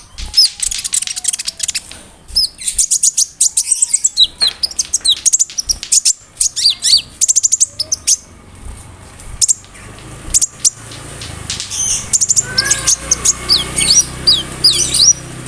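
Konin songbird singing a fast, varied stream of high chirps, trills and short sweeping notes, strung with imitated phrases of other birds and insects.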